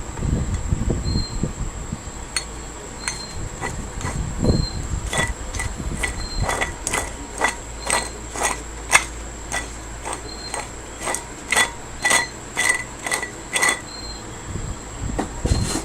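1995 Chevrolet Lumina 3.1L V6 running under the hood, with a steady hum and high whine and, through the middle, a run of sharp chirps about twice a second. This is part of a demonstration of water-pump noise.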